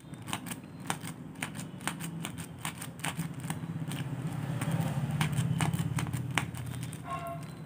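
Sewing needle pricking holes through a paper design into a soft pillow: a string of light, sharp pricks, irregular at about two or three a second, over a steady low hum.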